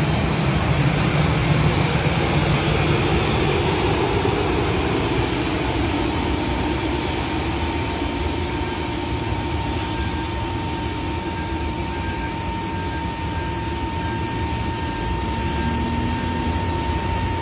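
Jet airliner engines running steadily: a constant rumble and hiss, with a thin steady whine joining about six seconds in.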